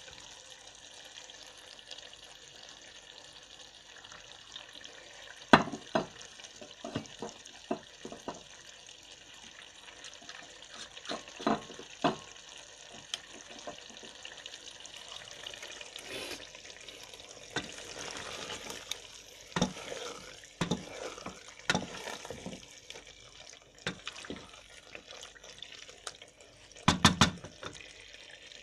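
Kitchen sounds: a steady watery hiss with scattered clinks and knocks of utensils, and a louder double knock near the end.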